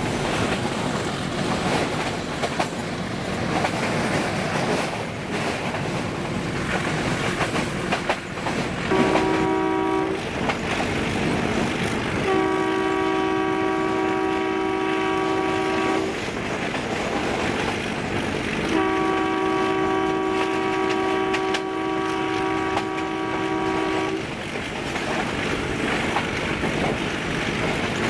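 Metre-gauge YDM4 diesel locomotive sounding its two-note horn three times: a short blast about nine seconds in, then two long blasts of about four and five seconds. Underneath is the steady running noise and clickety-clack of the train on the track, heard from aboard the train.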